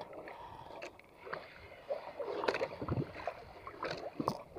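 Sea water lapping against a small outrigger boat, with scattered clicks and knocks from a spinning rod and reel being handled as a fish strikes.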